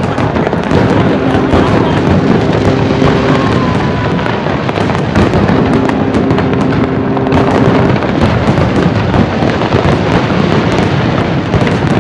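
Aerial firework shells bursting in quick succession: a dense, continuous barrage of overlapping bangs and crackles. Twice, a steady two-pitch tone is held under the barrage, first for about three seconds and then for about two.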